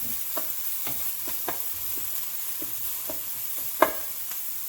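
Vegetables sizzling in a hot pan while being stirred, with irregular scrapes and knocks of the utensil against the pan. The sharpest knock comes near four seconds in.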